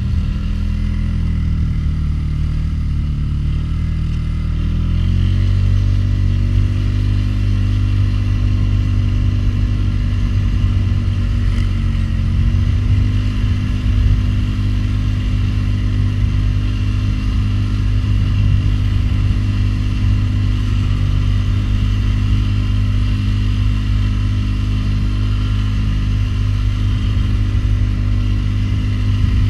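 Polaris Sportsman 500 HO ATV's single-cylinder four-stroke engine running under load while its front plow pushes snow. The engine note dips in the first few seconds, picks up about five seconds in, then holds steady.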